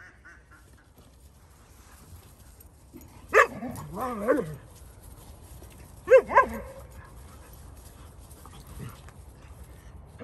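Young dogs barking and yipping in rough play. A sharp bark comes a little over three seconds in, then a short run of yips that rise and fall, and two more barks about six seconds in.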